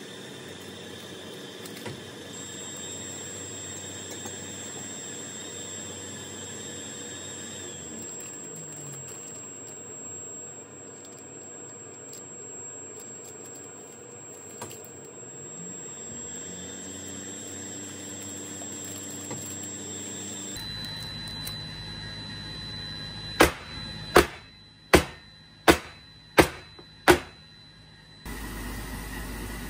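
Metal roll-cake pan full of castella batter rapped down on the counter six times, about 0.7 s apart, to knock the air bubbles out of the batter, over a steady background hum.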